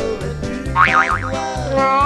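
Upbeat background music with a steady bass beat, with a wobbling, boing-like cartoon sound effect about a second in and a rising slide near the end.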